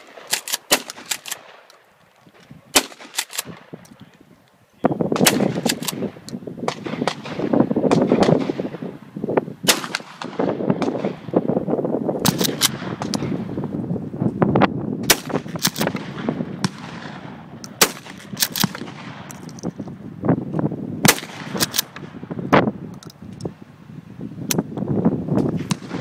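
Repeated gunshots at a shooting range: a 20-gauge pump-action shotgun firing buckshot, amid many other guns firing irregularly along the firing line. A steady rushing background noise begins suddenly about five seconds in.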